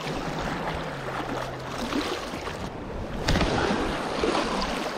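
Small sea waves washing and splashing against shoreline rocks, with a sharp click about three seconds in.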